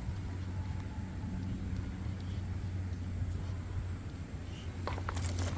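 A steady low mechanical hum, like an engine or passing traffic, with a few short clicks near the end.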